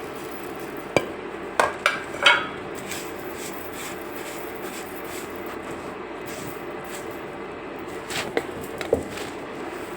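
Kitchen utensils knocking and clinking: a sharp knock about a second in, a quick cluster of clinks just after, and a few more knocks near the end, over a steady low background hum.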